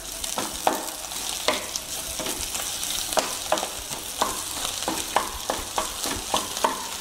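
Scrambled egg, shredded cabbage and vegetables sizzling in a frying pan while a wooden spatula stirs and tosses them, knocking and scraping against the pan at an uneven pace of roughly two strokes a second.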